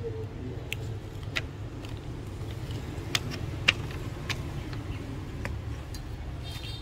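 About half a dozen sharp light clicks and taps, scattered and irregular, from small tools and parts being handled while working on a smartphone. Under them runs a steady low rumble like road traffic.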